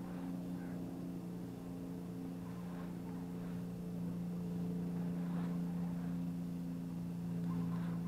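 An engine running steadily at an even, unchanging pitch, a little louder about two-thirds of the way through.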